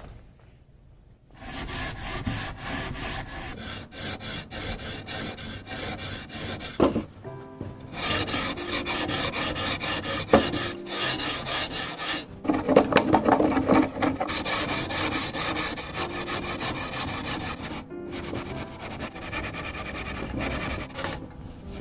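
Rasping, scraping strokes on wood, repeated quickly back and forth: the wooden step stand being smoothed by hand, with a couple of brief pauses.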